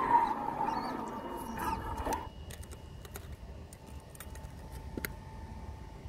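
Electric RC car running, heard from its onboard camera as a steady motor whine over rolling noise, cutting off about two seconds in. Then quiet with a few scattered light clicks.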